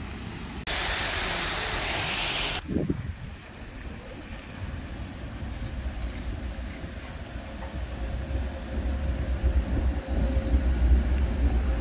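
An articulated PCC tram running past on its track, its rumble growing louder as it comes close and loudest near the end. A burst of wind noise on the microphone lasts about two seconds near the start.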